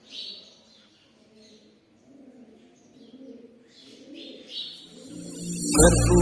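Faint bird calls: a few short high chirps among soft lower calls. Near the end, loud devotional chant music with a heavy bass comes in suddenly.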